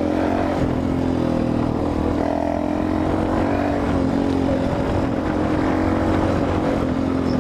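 Motorcycle with a loud exhaust running steadily while being ridden, its engine note holding even with no revving.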